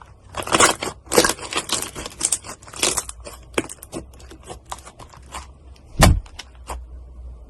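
Slime being squeezed and poked by hand, giving a quick run of crackling and popping clicks with a few longer squelchy bursts, and one heavier thud about six seconds in.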